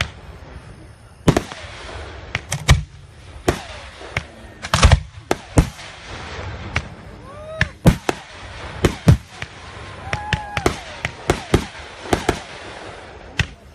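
Aerial firework shells bursting in an irregular volley of sharp booms and cracks, about twenty in all, some coming in quick clusters.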